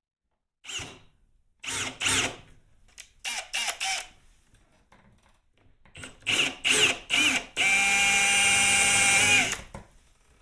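Electric drill driving a hole saw into the golf cart's body panel: several short trigger bursts, each whining up in pitch, then about two seconds of steady running near the end as it cuts through.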